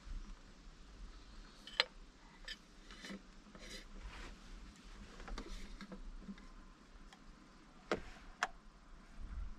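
Irregular light clicks and taps as a metal thermos and its cup are handled, with two sharper clicks close together about eight seconds in.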